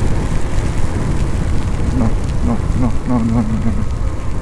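Motorcycle riding at speed: wind rushing over the helmet microphone, with the engine's steady buzzing drone underneath.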